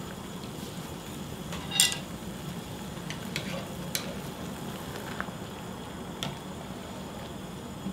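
Water boiling in a pot while angelica-tree shoots are blanched in it: a steady bubbling hiss. Wooden chopsticks turning the shoots give a few light clicks against the pot, the loudest about two seconds in.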